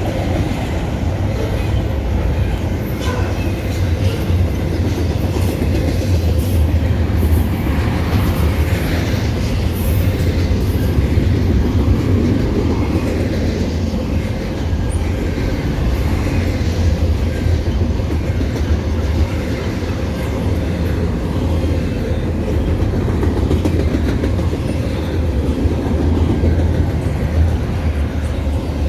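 Freight train rolling past at close range: a steady heavy rumble of wheels on rail with the clickety-clack of wheels over rail joints.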